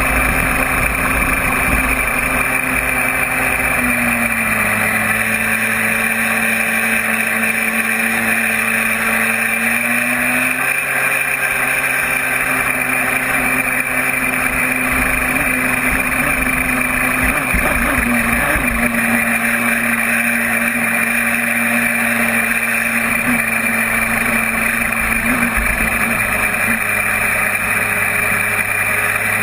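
RC jet boat's 3D-printed jet drive running, driven by a 3400KV brushless inrunner motor through a 2:1 reduction gearbox: a steady whine over loud rushing noise. Its pitch dips slightly twice and comes back up.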